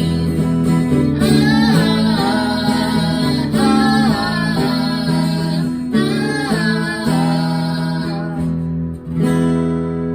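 Acoustic guitar strummed under a singing voice, closing on a final chord that stops sharply at the end.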